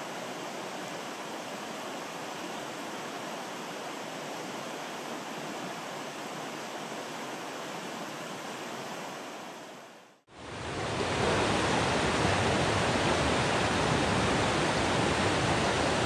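Steady rushing of a small rocky river's current. About ten seconds in it fades out briefly and comes back louder, with the faster water of a riffle close by.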